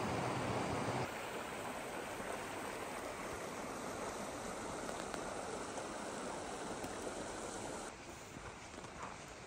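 Shallow mountain river running over rocks: a steady rushing of water, louder and deeper for the first second, then an even, softer flow. Near the end it drops to a quieter background with a few faint clicks.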